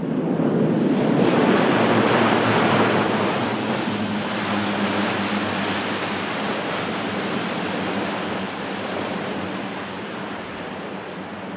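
Lockheed C-130J Hercules turboprops running as the aircraft rolls past on a dirt strip: a broad rushing roar over a steady low hum. It is loudest about one to three seconds in, then slowly fades as the aircraft moves away into its own dust cloud.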